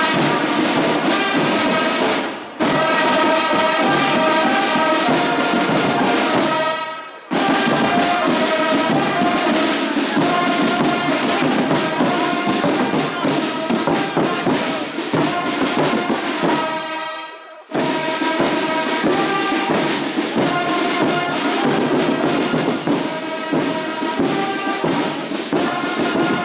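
Brass band playing, with drums, loud and continuous; the music drops out briefly three times and comes straight back.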